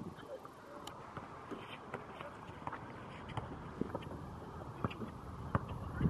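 Basketball bouncing on an outdoor concrete court: scattered, irregular sharp thumps over a low outdoor rumble, with faint voices.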